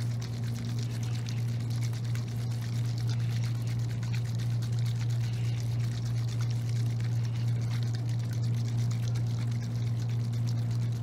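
Oil sloshing and churning inside a syringe shaken hard by hand, a dense stream of rapid small splashes with no break, over a steady low hum. The shaking whips the oil into many small bubbles to drive its dissolved gases out into the air space in the syringe.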